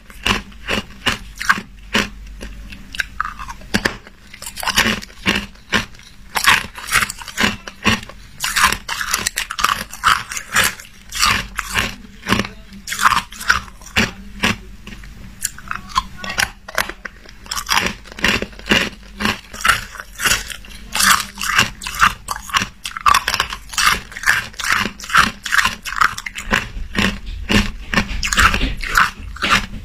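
A person biting and chewing frosty white ice cubes close to the microphone: clusters of sharp, crisp crunches, several a second, with short pauses between bites.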